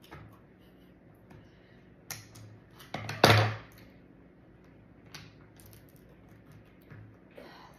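Scissors snipping at a plastic slime packet, then a knock as the scissors are set down on a wooden table about three seconds in. Scattered lighter clicks and taps follow as fingers work at the packet.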